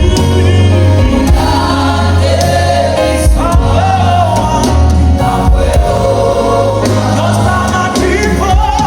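Gospel worship music: a choir singing over a steady, heavy bass.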